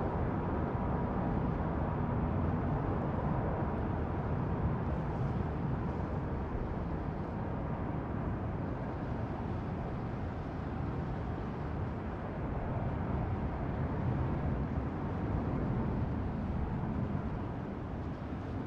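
Boeing 767-300ER's twin jet engines at go-around power: a steady low rumble as the airliner climbs away, easing slightly toward the end.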